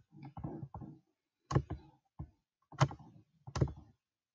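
Computer clicks: three sharp clicks, with softer knocks in the first second, from a mouse and keyboard being worked while code blocks are dragged and duplicated.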